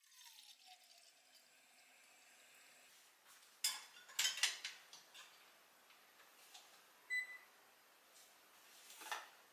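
Quiet kitchen sounds of dishes and cutlery: a few light clinks about four seconds in, a short electronic beep a little after seven seconds, and a soft swish near the end.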